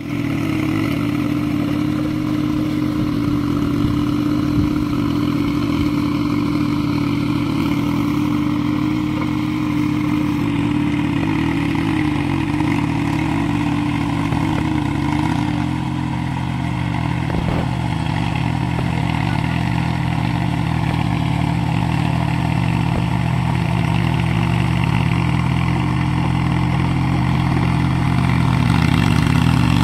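Small diesel engine of a VST Shakti VT-180D (Mitsubishi-type) four-wheel-drive mini tractor running steadily under load as it pulls a rotary tiller through a flooded paddy field. The engine note shifts a little about halfway through and grows louder near the end.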